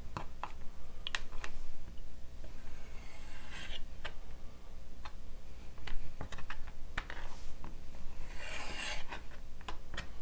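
Hands handling cheese slices on a bamboo cutting board: scattered light taps and clicks on the wood, with two short rustling scrapes about three seconds in and near the end.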